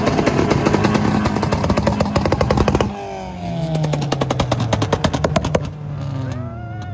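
Loud import race car engine revving with a fast, even stutter of exhaust pops. The revs drop about three seconds in, the stutter returns, and near the end the engine revs up and back down.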